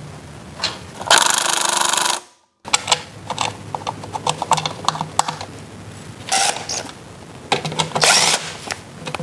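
A power drill-driver with a socket extension spinning bolts into a scooter's CVT cover in short runs, about a second in and twice more near the end, with clicks and clatter of parts and tools being handled in between.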